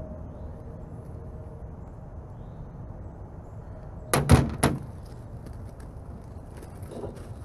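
Three quick loud clanks about four seconds in, metal parts being handled on the aluminium diamond-plate truck toolbox lid, then a softer knock near the end, over a low steady background rumble.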